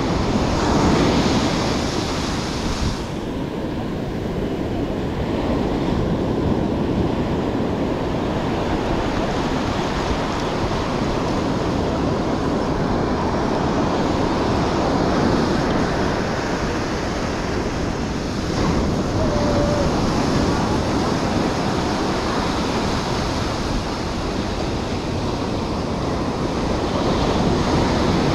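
Ocean surf breaking on a beach: a continuous wash of waves that swells and eases every few seconds.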